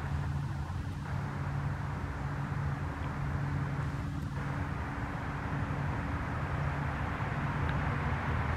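Diesel engines of a river towboat pushing barges, a steady low drone with a pitched hum, growing slightly louder toward the end.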